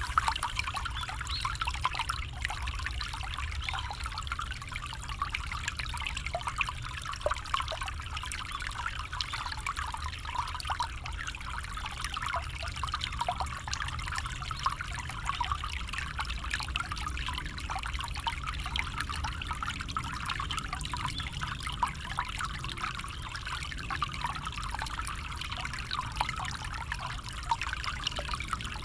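Small stream trickling and bubbling over stones, a steady babble of little splashes with a low rumble beneath.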